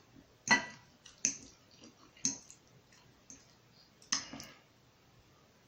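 Close-miked eating: chewing with a handful of sharp, wet mouth smacks spaced out over the few seconds.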